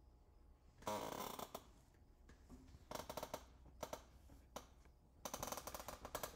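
Handling noise close to the microphone: several short bursts of rustling and scraping as cables and gear are moved, over a faint steady low hum.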